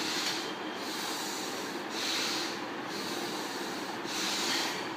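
A man breathing deeply and audibly through his nose, a breath swelling about every two seconds over a steady hiss.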